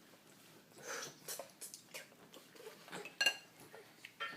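Scattered small clicks and knocks of dishware while eating, with one brighter ringing clink about three seconds in.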